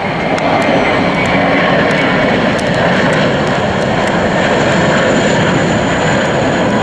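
A jet airliner's engines running loud as it passes close by: a steady rushing noise that swells in the first second and then holds, with a faint high whine above it.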